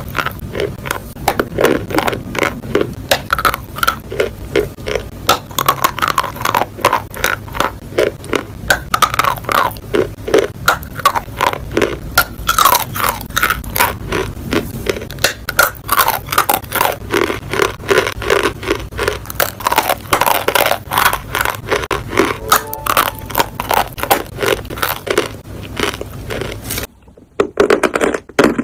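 Chalk being bitten and chewed close to the microphone: a rapid run of crisp crunches, several a second, with a brief break near the end.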